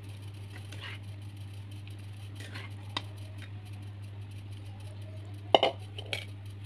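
Cooked stir-fry being dished from the pan into a container: a few light clinks and scrapes of the utensil against cookware, with a sharper clatter about five and a half seconds in, over a steady low hum.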